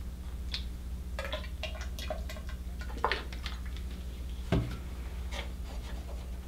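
Scattered light clicks and knocks of small parts being handled, over a steady low hum. Two sharper knocks stand out, one about three seconds in and the louder one about a second and a half later.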